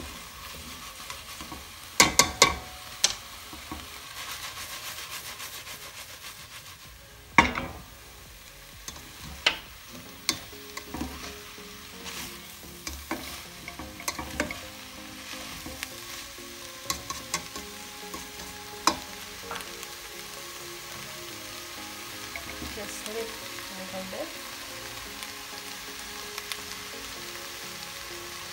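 Vegetables sizzling as they stir-fry in a stainless steel pan, with a spatula scraping and knocking against the pan in sharp clacks. The clacks are loudest about two seconds in and again around seven seconds, and grow sparse in the last third.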